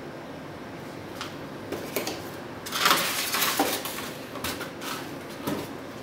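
Unboxing handling of knife sharpener parts and polystyrene foam packaging: a few light clicks and knocks, with a louder scraping rustle about three seconds in.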